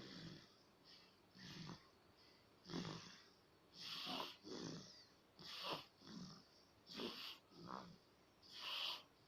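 A three-month-old baby snoring in sleep, a short noisy snore on the in- and out-breaths. The breathing is quick, about one breath every second and a half.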